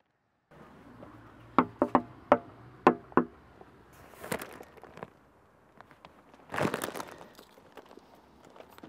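A quick, uneven run of about six sharp hollow taps, then a short rustle, most likely the large paper delivery bag being handled.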